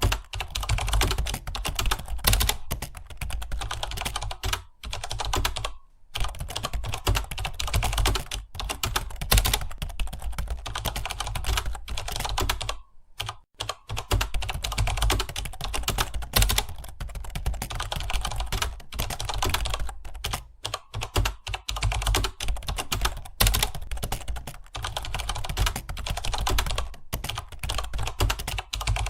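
Fast typing on a computer keyboard: a dense, continuous run of keystroke clicks, with brief pauses about six seconds in and again around thirteen seconds.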